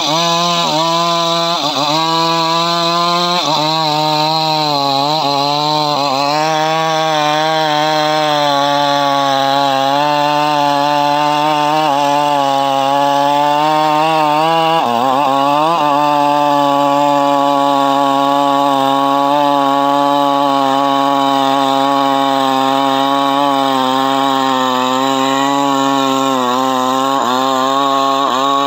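Custom-assembled chainsaw running at full throttle, cutting through a large log. The engine note sags several times in the first few seconds and once about halfway as the chain bites into the wood, otherwise holding steady under load.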